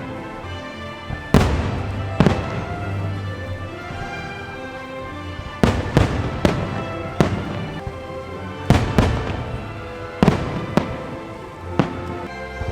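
Fireworks bursting, about a dozen sharp bangs at uneven intervals, some in quick pairs, over a show's orchestral music soundtrack.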